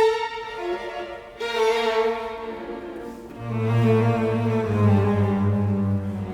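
Background music of held, string-like notes, with a low bass line coming in about halfway through.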